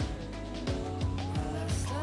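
Background music with a steady beat of low drum hits and a gliding melody.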